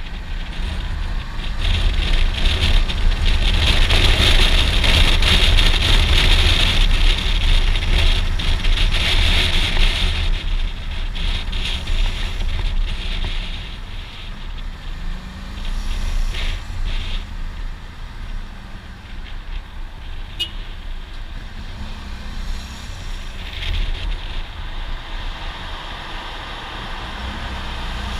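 Suzuki V-Strom 650 XT motorcycle under way in traffic: wind rushing over the helmet-mounted microphone over the low rumble of its V-twin engine. Loudest for the first ten seconds or so, then quieter and steadier as the bike slows in traffic, with a short rev of the engine about halfway through.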